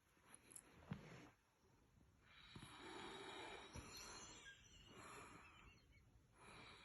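Faint snoring from a sleeping person: a slow run of breathy snores with short pauses between breaths.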